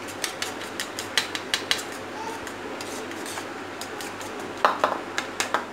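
Eggs being beaten in a plastic bowl: a utensil clicks and taps quickly and unevenly against the bowl, with a few louder knocks near the end.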